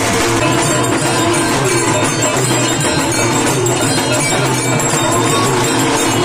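Loud music playing without a break.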